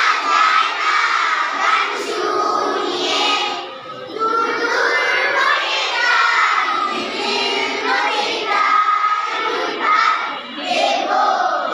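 A crowd of schoolchildren singing and shouting together, many young voices overlapping at once.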